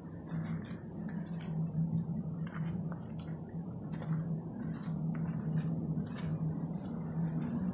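Footsteps on the wet stones and gravel of a shallow stream bed: irregular crunching and clacking steps as stones shift and knock together underfoot, over a steady low hum.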